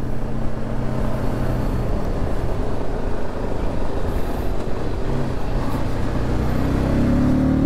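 Motorcycle engine running under way, with heavy wind noise over a helmet-mounted microphone. Near the end the engine pitch rises as the bike accelerates.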